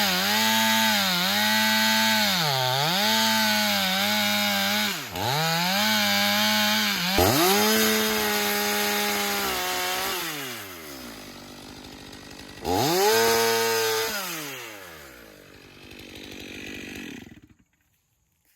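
Battery-powered Stihl pole saw running and cutting branches: its motor pitch sags each time the chain bites into the wood, then recovers. About ten seconds in the saw winds down, gives one more short burst, and fades out.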